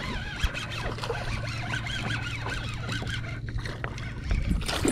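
Fishing reel being cranked to bring in a hooked largemouth bass, a run of fine ticking and small whirring tones. A couple of low thumps come near the end.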